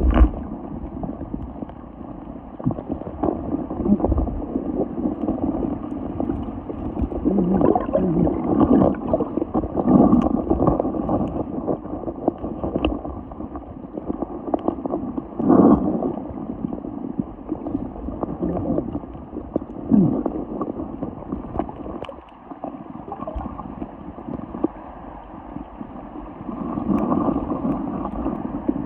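Water sloshing and gurgling, with several louder splashes.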